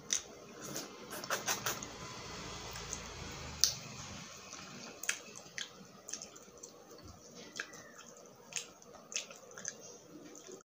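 Close-miked eating sounds: a person chewing grilled skewered street-food meat, with short sharp mouth clicks and smacks at irregular intervals, the loudest about three and a half seconds in.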